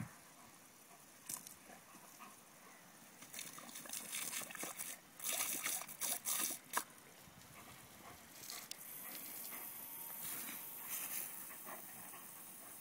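Jet of water from a Gardena lawn sprinkler hissing and spattering as a German Shepherd bites into it, with louder irregular splashing between about three and seven seconds in, then a steadier hiss.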